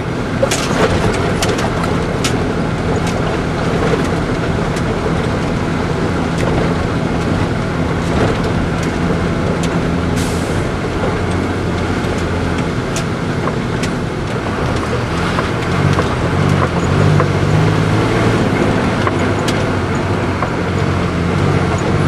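Propane bobtail tanker truck's engine pulling in a low gear at walking pace, heard from inside the cab, with the cab rattling and knocking over a bumpy gravel road. About halfway through there is a short hiss, and in the last third the engine grows louder and less even.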